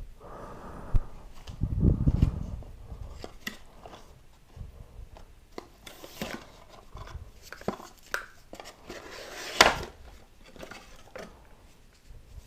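Headphone packaging being handled: scattered taps, clicks and rustles of cardboard and paper, with a louder sharp scrape about nine and a half seconds in.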